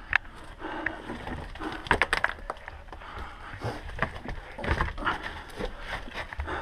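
Scuffling and scraping of people crawling through a narrow tunnel over stone and grit, with irregular knocks close to the microphone.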